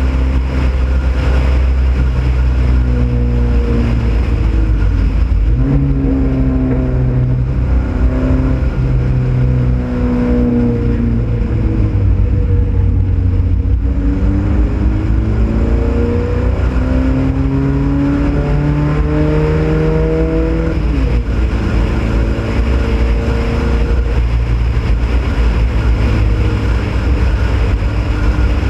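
Ford Pinto race car's engine under racing load, pitch climbing in steps through the gears, falling away for a few seconds as it slows into a corner, then climbing again before dropping suddenly about three-quarters through and holding steady. Heavy wind rumble over the hood-mounted microphone.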